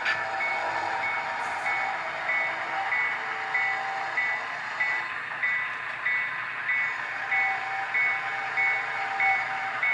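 S scale model of a 44-ton Plymouth diesel locomotive moving slowly, with a diesel engine running and a bell ringing about twice a second.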